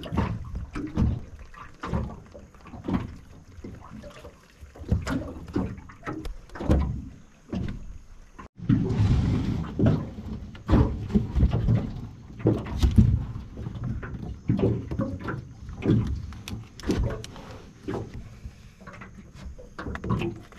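Irregular knocks, clatter and scraping from handling a collapsible wire crab pot and live mud crabs on the floor of an aluminium dinghy.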